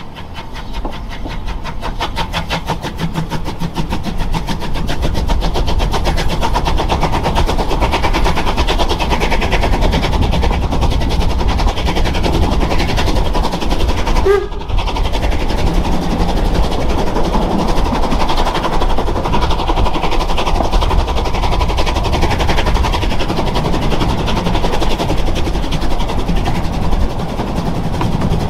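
Narrow-gauge train running on the Zittau line, heard from on board: a rapid even run of beats while the sound builds over the first few seconds, then a steady loud rumble with a brief drop about halfway through.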